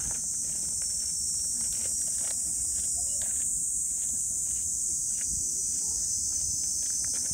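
Steady, high-pitched insect chorus that does not let up, over a low rustling haze and a few faint clicks.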